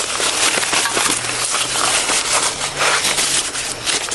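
Continuous close rustling and crackling, with a faint steady low hum underneath.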